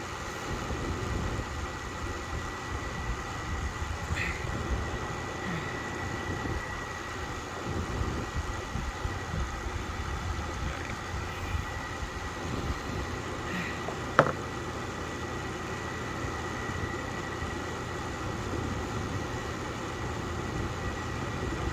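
Steady background hum with a faint high whine, small handling ticks now and then, and one sharp click about fourteen seconds in.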